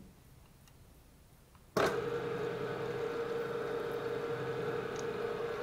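PM-727 benchtop milling machine's spindle switched on about two seconds in, then running with a steady hum, a centre drill in its chuck for spotting a small layout mark in an aluminium disc.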